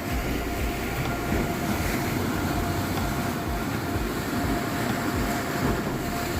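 Sea waves breaking and churning against rocks: a steady rushing roar with an uneven low rumble underneath.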